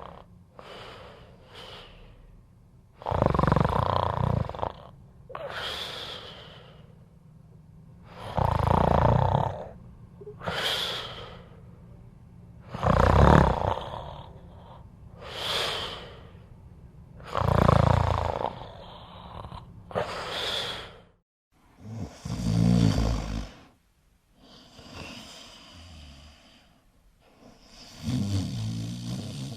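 A person snoring in a steady rhythm. A loud, deep, rattling snore comes about every four to five seconds, six in all, and each is followed by a softer, hissing breath out.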